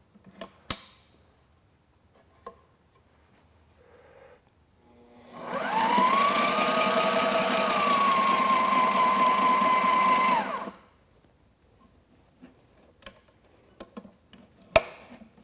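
Sailrite LSZ-1 Plus zigzag sewing machine stitching a zigzag test seam through canvas for about five seconds. Its motor whine rises as it gets up to speed, holds steady, then cuts off. A sharp click comes near the start and another near the end.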